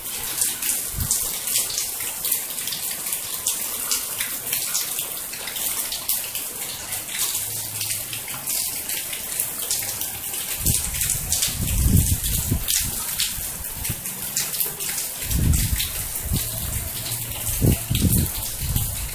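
Heavy rain falling steadily: a dense hiss of water with many drops pattering close by. From about halfway through, irregular bursts of low rumble come and go beneath it.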